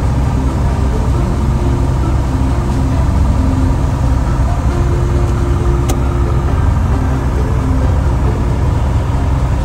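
Cessna 170B's six-cylinder Continental engine and propeller running steadily, heard inside the cabin on final approach, with one sharp click about six seconds in.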